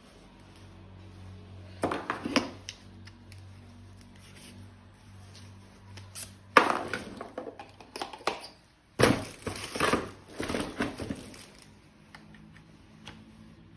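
Packaging and plastic toy parts being handled during an unboxing: bursts of crinkling and rustling with sharp clicks, three times, the loudest click about six and a half seconds in.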